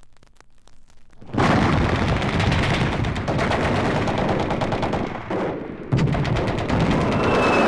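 Battle gunfire sound effect: a few faint, scattered shots, then about a second and a half in, loud, rapid, continuous machine-gun fire that briefly eases and comes back. A thin high whistle starts near the end.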